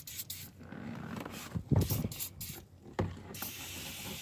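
1998 Ford Explorer's driver door being moved on its hinges: a low creak a little over halfway through and a sharp knock about three seconds in, the door knock that the owner is trying to cure. Near the end comes the hiss of an aerosol lubricant spraying into the hinge.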